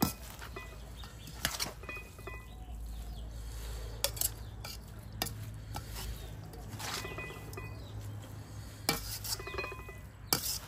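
A metal spatula and spoon clink and scrape against a stainless-steel mixing bowl as a rice-noodle salad is tossed, with about seven sharp clinks spread out over a low steady hum.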